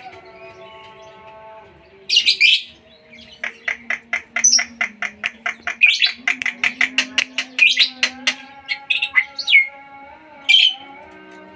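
Songbirds chirping and calling. A harsh call comes about two seconds in, then a fast run of sharp chirps, several a second, lasting about five seconds, then a few more separate calls near the end.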